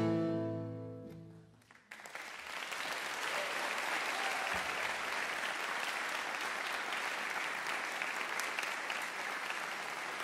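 The final chord of two classical guitars rings out and fades. About two seconds in, audience applause breaks out and carries on steadily.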